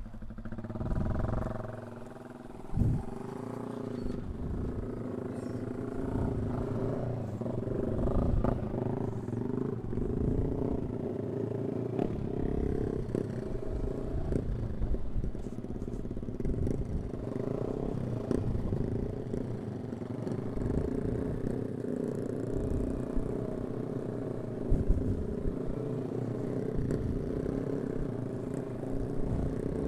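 Yamaha R15 V3 motorcycle engine running steadily under way, with wind buffeting the microphone.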